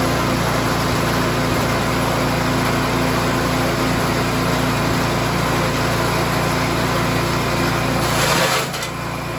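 Small-engine forage chopper running steadily while cassava stalks and leaves are fed in and chopped. About eight seconds in there is a brief louder rush, then the sound drops a little.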